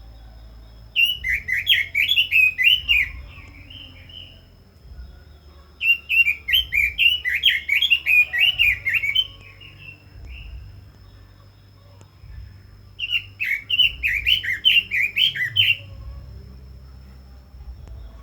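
Red-billed leiothrix singing: three bursts of rapid warbling, quick up-and-down notes, each lasting two to three seconds with pauses between. A faint steady high tone runs underneath.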